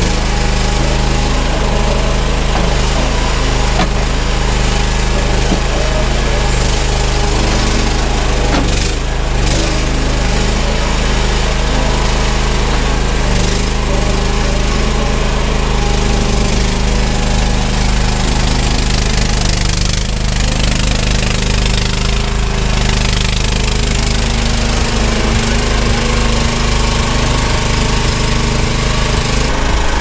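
Engine of an EGN EG360 mini skid steer running steadily under work while it scoops and carries a bucket of debris, with a few short knocks along the way.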